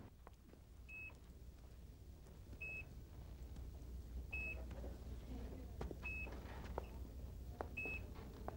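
Hospital bedside patient monitor beeping: five short, high, identical beeps evenly spaced about every second and a half, over a low steady hum.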